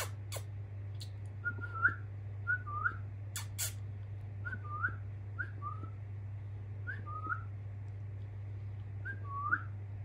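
Eight-week-old budgerigar giving soft, short two-note chirps, about six of them spaced out, each a quick whistle hooking upward. A few sharp clicks come midway, over a steady low hum.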